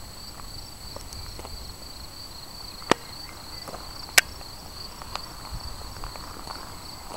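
Crickets chirring steadily at a high pitch, with a few sharp clicks, the two loudest about three and four seconds in.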